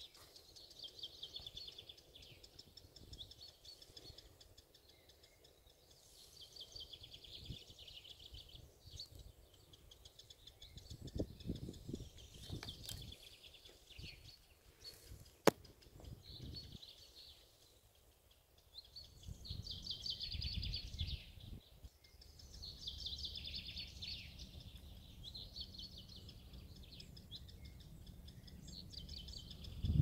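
Fledged Eurasian wryneck young giving their begging call: rapid, thin, high trains of notes, like a firecrest's call but far faster, repeated every second or two. A single sharp click falls about halfway, and there is low rumble in a few spells.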